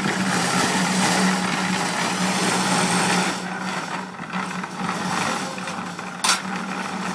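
Drum-type mortar and concrete mixer running: a steady motor hum under the rough churning of the mix tumbling in the rotating drum. The churning gets quieter about three seconds in as the drum is tilted by its hand wheel, and a single sharp metal clank comes near the end.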